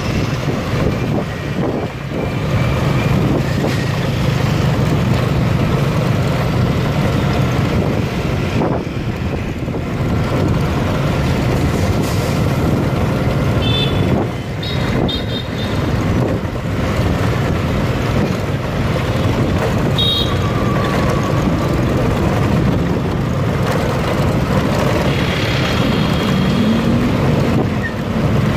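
Steady road and engine noise of dense motorbike and car traffic heard while riding along a city street, with a little wind on the microphone. Short horn beeps sound a few times in the middle.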